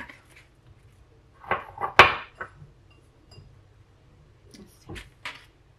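A few short knocks and clinks of crockery, a white ceramic dish and a small bowl of breadcrumbs, as raw alheira-and-cheese balls are picked up and dropped into the breadcrumbs. The sharpest, loudest knock comes about two seconds in, with a second group of lighter clicks near the end.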